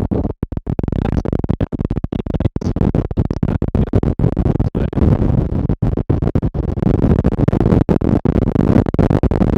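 Heavy wind blast on an SJCAM action camera's stock external microphone at riding speed, a loud low rumble that keeps cutting out for a split second many times: the wind overload makes the audio drop out.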